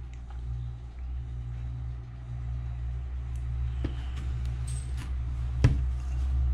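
A DVD box set being handled, with light clicks and taps of cardboard and plastic from about three seconds in and one sharper knock near the end, over a steady low hum.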